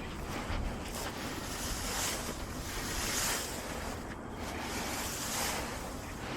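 Heavy breathing close to the microphone during hand-weeding: a hiss that swells and fades every second or so.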